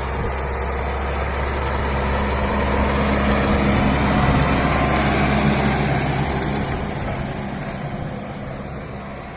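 John Deere 6115 tractor's diesel engine running steadily while ploughing, growing louder to a peak about four seconds in and then fading away.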